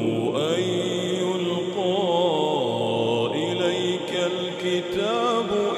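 A man chanting the Quran in a slow, melodic tajweed style. His long vowels are drawn out and waver up and down in pitch, with hardly a break between phrases.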